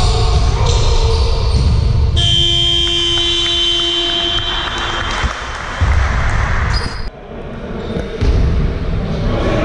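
Basketball game noise in a sports hall: the ball bouncing and players moving on the court. About two seconds in, a long, steady, shrill referee's whistle sounds for about two seconds and stops play.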